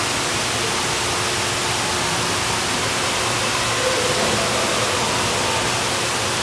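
Steady rushing noise of an indoor swimming pool: water churned by swimmers, echoing in the hall, at an even level throughout.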